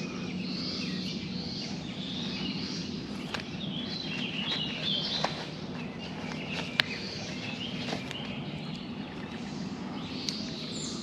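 Songbirds chirping and singing over a steady low background rumble, with a few sharp clicks and rustles from a climbing tether rope and its metal hardware being handled; the sharpest click comes a little past the middle.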